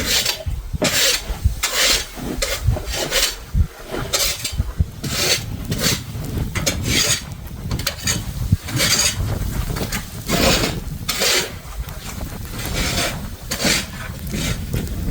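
Snow shovel scraping and pushing through snow, a dozen or so short rasping strokes about a second apart.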